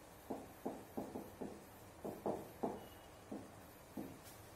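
Felt-tip marker writing on a whiteboard: a quick, uneven series of short strokes and taps that thins out in the last second.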